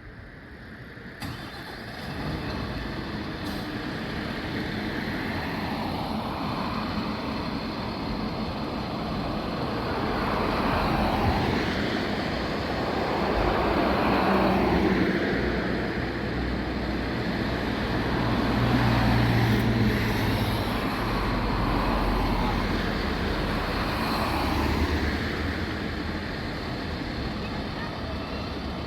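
Road vehicle engines running and passing, the engine and road noise swelling and easing in several waves, with voices at times.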